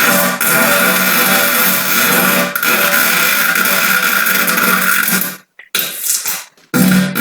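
A long, loud, buzzing fart lasting about five seconds, with a brief dip about two and a half seconds in, followed by a few short fart bursts and another starting near the end. The uploader says these farts come from air he has drawn in through his anus.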